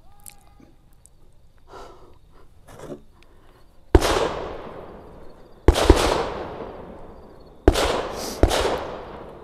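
Five shots from an FN 509 CC Edge 9mm pistol with a compensator: one shot about four seconds in, two in quick succession a little later, then two more near the end. Each shot trails off in a long echo.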